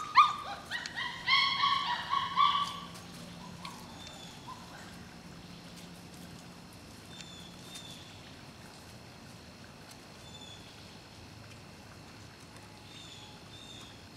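Šarplaninac puppies giving a quick run of high-pitched whines and yelps during the first three seconds. After that a bird chirps faintly every few seconds over quiet outdoor background.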